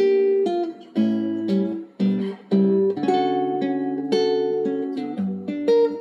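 Background music: an acoustic guitar picking a slow tune one note at a time, in broken chords.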